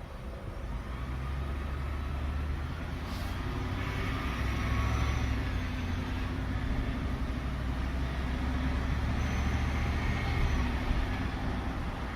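A large motor vehicle running, with a steady low rumble that grows louder over the first few seconds.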